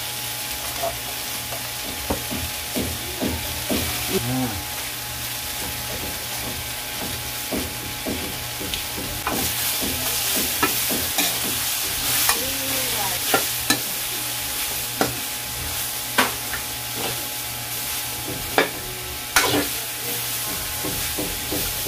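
String beans and pork sizzling in a wok as a ladle stirs them, scraping and clinking against the sides of the pan. The clinks are louder and more frequent in the second half.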